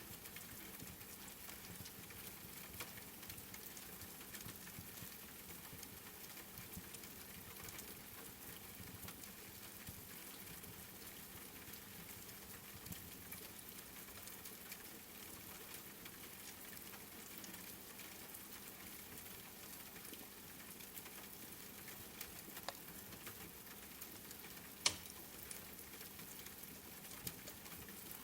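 Steady patter of rain mixed with the crackle of a wood fire, small pops scattered throughout and one sharper pop about 25 seconds in.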